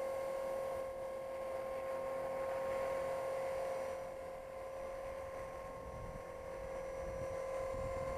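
Tarot 450 electric RC helicopter in flight: a steady whine from its motor and rotors. Wind buffets the microphone for the last couple of seconds.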